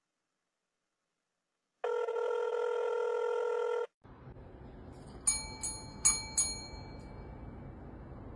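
A steady electronic tone lasting about two seconds that stops abruptly. Then a small metal service bell on a cat's feeding tray is struck by the cat and rings four times in quick succession, each ding with a bright ringing tail.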